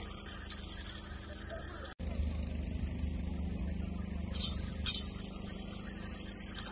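Steady low vehicle rumble with a faint high whine over it, broken by two short sharp sounds about four and a half seconds in; the sound drops out for an instant about two seconds in.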